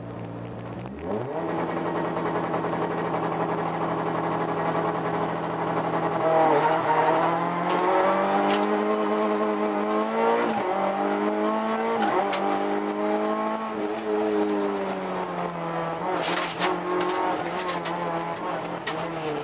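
Rally car engine heard from inside the cabin, running steadily and then pulling away hard about a second in. The engine note then climbs and drops in pitch again and again as the car is driven flat out along the stage. A few sharp clicks and knocks come about eight seconds in and again near the end.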